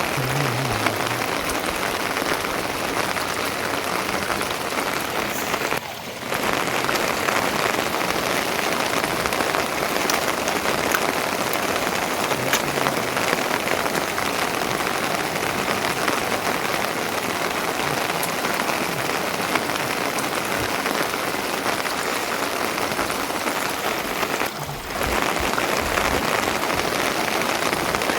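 Steady rain falling, a dense patter of drops that briefly dips twice.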